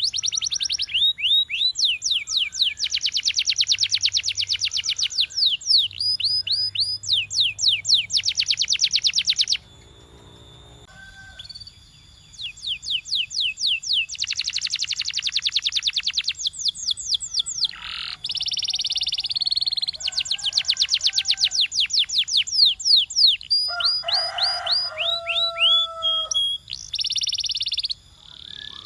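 Domestic canary singing: fast, high trills and rolls of quickly repeated sweeping notes, with a pause of about two seconds near the middle and a passage of lower, held notes later on.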